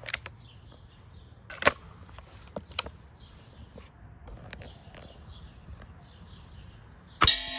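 Air rifle shooting: a sharp crack about a second and a half in and a few lighter clicks, then near the end a pellet strikes the metal pan, which rings on with a sustained bell-like tone.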